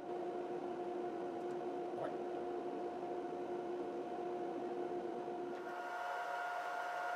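Steady machine hum with several level whining tones, like a fan-driven appliance running; about five and a half seconds in, the lower tones drop away and higher ones come in. A light tick about two seconds in.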